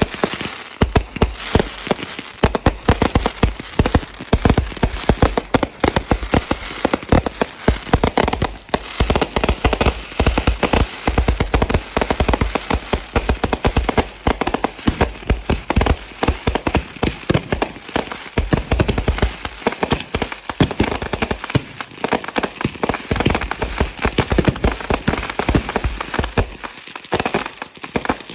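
Consumer fireworks going off in a dense, continuous barrage: rapid bangs and crackling with no pause.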